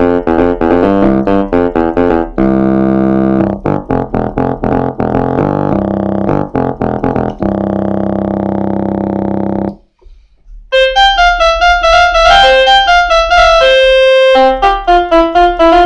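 Kawai FS660 portable electronic keyboard playing one of its built-in voices: quick notes, then held chords that cut off just before the middle. After a short pause a brighter, higher voice plays a quick melody.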